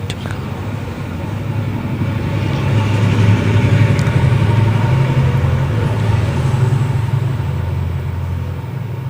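A low engine rumble that grows louder to a peak about three to five seconds in, then fades away, like a motor vehicle passing by.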